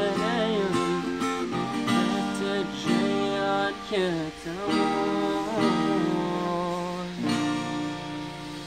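Steel-string acoustic guitar strummed with a man singing over it; the voice stops about seven seconds in and the guitar chords ring on.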